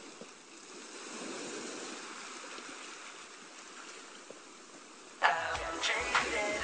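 Steady wash of ocean surf, swelling a little over the first couple of seconds. About five seconds in, music with a deep beat starts abruptly over it.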